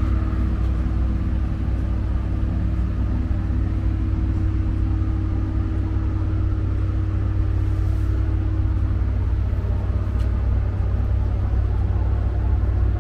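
Steady low rumble with a constant mid-pitched hum running under it, unchanging throughout.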